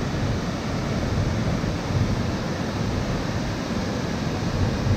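Steady roar of rushing water from the river and falls, an even noise with a low rumble.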